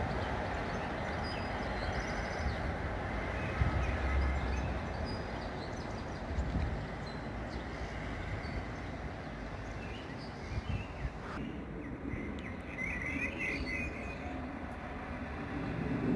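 Distant rumble of a railway locomotive moving on the track, with a few low thuds. Near the end, a bird chirps in a quick run over the background hum.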